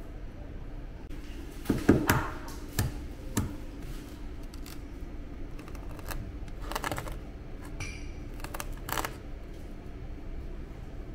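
Scattered clicks and knocks, a cluster of the loudest about two seconds in and a few more later, over a steady low hum in a small room.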